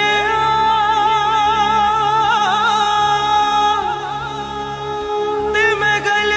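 Film song: a solo singer holds long, wavering sung notes with quick ornamental turns over a steady low drone. One phrase ends and the next begins near the end.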